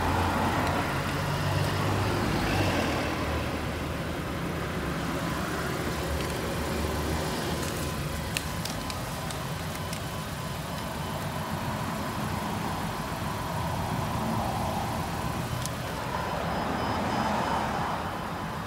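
Road traffic outdoors: cars passing by, swelling near the start and again near the end, over a steady rumble, with a few faint clicks in the middle.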